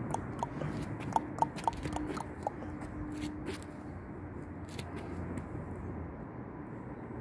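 A person clicking their tongue, a handful of sharp pitched clicks in the first couple of seconds, then only a faint steady outdoor background.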